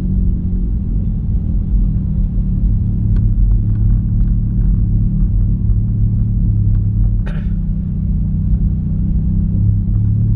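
Toyota Calya's engine and tyre noise heard inside the cabin while driving slowly: a steady low rumble.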